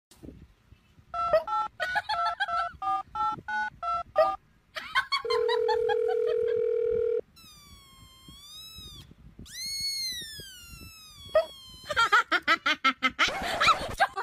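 Comic sound effects: a quick tune of short electronic beeps, a held steady beep, then two sliding whistle-like tones that dip and rise. Laughter comes near the end.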